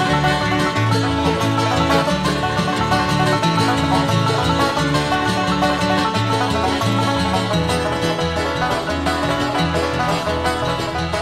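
Bluegrass band playing an instrumental passage: five-string banjo picking with guitar and fiddle over a steady bass line.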